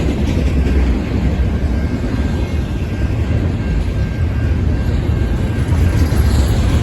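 BNSF intermodal freight train passing: a loud, steady low rumble and roar with a faint steady high whine on top.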